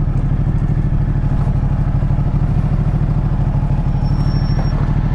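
Ducati Multistrada motorcycle engine running at a steady, even pulse with no revving while the bike rolls slowly over a gravel riverbed.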